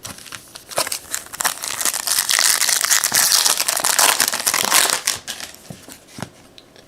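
A trading card pack's wrapper being torn open and crinkled: a dense run of crackling from about a second and a half in until about five seconds, followed by a few light clicks.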